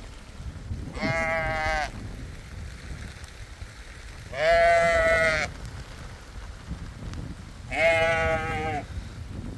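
A sheep bleating three times, each call about a second long and a few seconds apart, the middle one the loudest.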